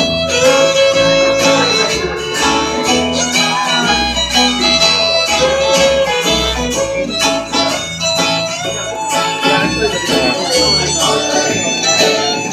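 Live band playing an instrumental passage, with a fiddle holding long notes over guitar, bass and drums, recorded through a phone's microphone.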